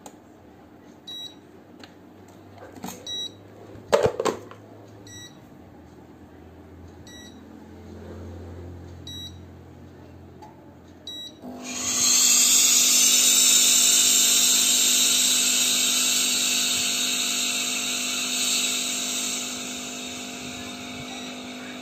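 Philips steam generator iron running its Smart Calc-Clean descaling cycle. A few short beeps and a sharp knock about four seconds in come first. About twelve seconds in a loud steady hiss of steam with a pump hum begins and slowly fades as the iron flushes scale and debris out of its water channel and pump.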